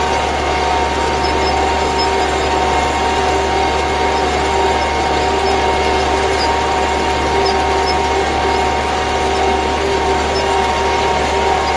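MTZ 820.2 tractor's diesel engine running steadily under load while pulling a tined cultivator through the soil, with a steady whine on top.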